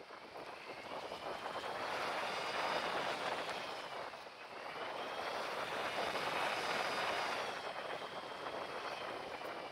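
Bicycle tyres rolling fast down a dirt trail: a rushing noise with a faint hum whose pitch rises and falls with speed. It swells twice, at about two to four seconds and again at five to seven and a half seconds.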